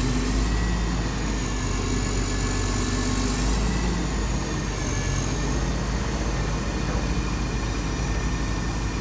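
A heavy diesel engine running steadily at idle, with faint high whines above it.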